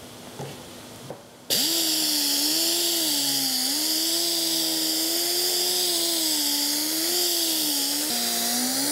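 Air-powered mini buffer with a wool pad starting up about a second and a half in and running steadily: a strong hiss of exhaust air over a whine that wavers in pitch and dips briefly near the end. It is buffing cutting compound into black fiberglass gel coat to remove sanding marks.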